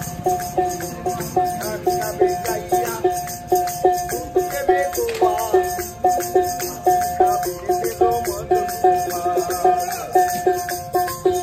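Ektara, a one-string drone lute, plucked over and over on the same note in a steady rhythm, with wooden khartal clappers clicking along.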